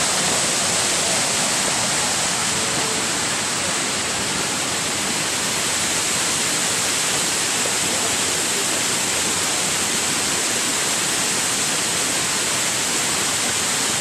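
Waterfall: a steady rush of falling water, an even hiss with no breaks.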